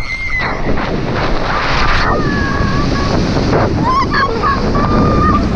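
Wind buffeting an action camera's microphone as the wearer swings at speed through a canyon, with a person's long held yells over it: near the start, about two seconds in and again about four seconds in.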